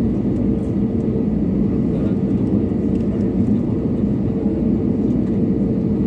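Airliner's jet engines running steadily: an even low rumble with a constant hum over it.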